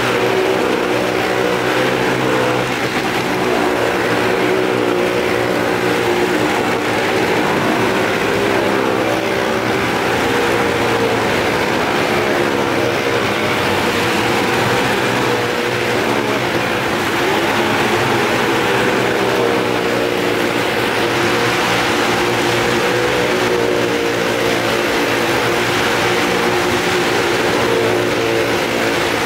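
Small Maruti car engines running hard as the cars circle the near-vertical wooden wall of a well-of-death drum, heard from the rim as one steady, loud engine drone.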